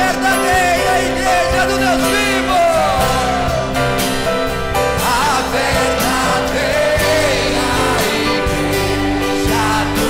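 Congregation of women singing a gospel hymn together over held accompanying chords, with voices sliding between notes.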